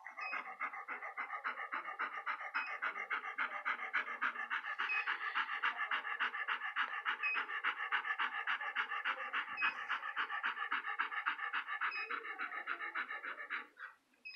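Muzzled dog panting fast and evenly, the pants stopping just before the end.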